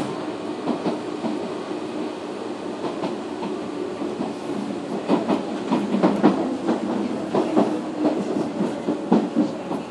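Ride noise inside Nishitetsu 313-series car 365, above its motored bogie: a steady hum from the cardan-drive traction motor and gearing, with the wheels clattering over rail joints. The clatter grows louder and quicker from about halfway through.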